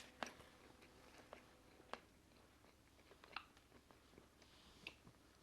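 Faint chewing of a mouthful of chicken korma and rice, with about four short, sharp clicks spread through it.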